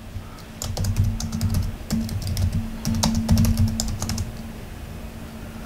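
Typing on a computer keyboard: a quick run of key clicks that stops about four seconds in.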